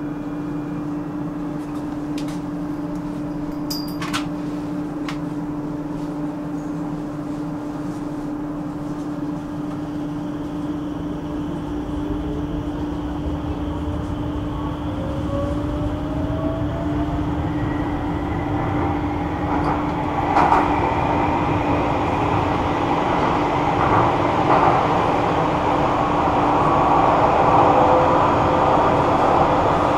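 Metro train heard from inside the car: a steady hum, then the train gathers speed. A rising motor whine comes in about twelve seconds in, and the running noise grows steadily louder toward the end.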